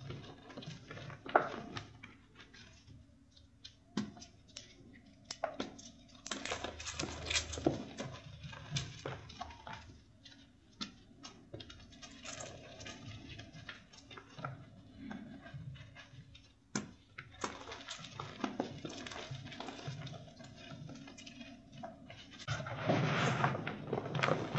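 Fingers crushing crunchy reformed chalk blocks mixed with charcoal, giving irregular crisp cracks and crumbling crackles over a soft gritty rustle of powder. A denser, louder stretch of crumbling comes near the end.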